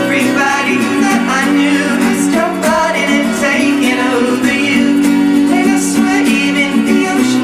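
Music: a voice singing over guitar accompaniment, with steady sustained low notes underneath.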